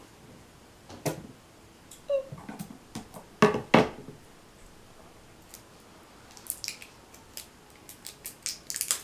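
Scissors handled and snipping as a paint container is cut open: scattered sharp clicks, two loud ones about three and a half seconds in, then a quick run of light snips near the end.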